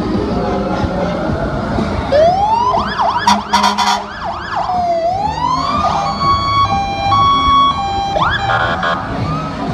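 Fire truck sirens: a wail rising about two seconds in, then fast up-and-down yelp sweeps with several short loud blasts, then two alternating steady notes, and another rising wail near the end. Low vehicle rumble runs underneath.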